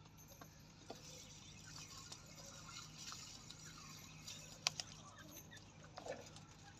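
Partridge (teetar) pecking at food: quiet scattered sharp taps, one clearly louder a little past the middle, with a few faint short chirps.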